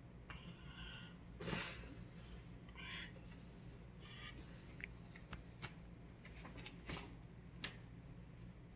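French bulldog's soft snorts and snuffling breaths, the loudest about a second and a half in, followed by a few short clicks.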